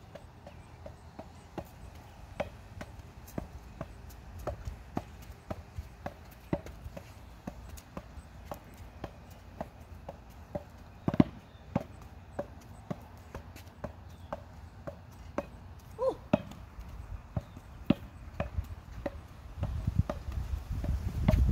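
Oversized tennis ball struck by a foot and bouncing on a concrete sidewalk: irregular knocks, about one or two a second. A low rumble builds near the end.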